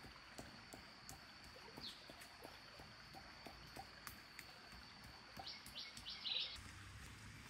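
Faint forest ambience: a quick run of bird chirps about five and a half seconds in, over a steady high-pitched whine and a few faint ticks.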